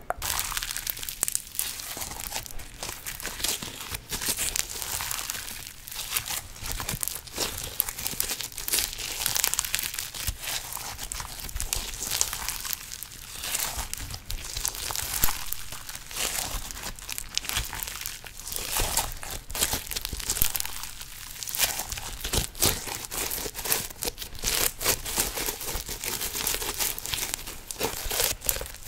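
Slime being squished and worked, a continuous run of small sticky crackles and pops.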